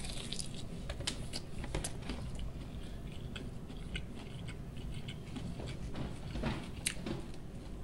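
Close-up eating sounds: a person biting into and chewing a sauce-coated chicken wing drumette, with many small scattered mouth clicks.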